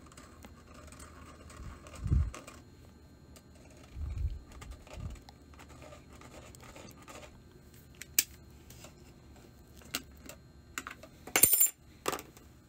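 Workbench handling sounds: faint pen scratching as hole positions are marked through a metal label plate onto a switch panel, a couple of dull bumps and scattered light clicks, then a sharp metallic clack near the end as a steel combination square is set against the panel.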